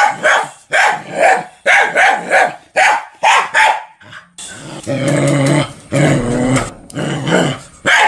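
A dog barking over and over, about two barks a second, then one longer drawn-out call in the middle before more barks near the end.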